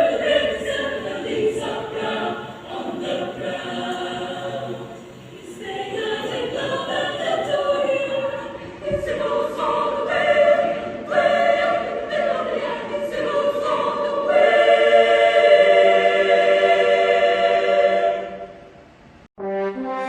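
Choir singing, with long held chords in the later part; the singing fades away near the end.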